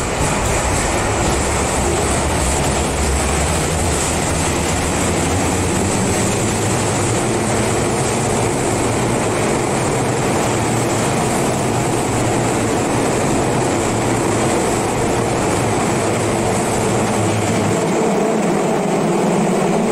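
Tokyu 3000 series electric train pulling out of an underground station, its cars rumbling steadily past the platform. The low rumble dies away near the end as the last car leaves.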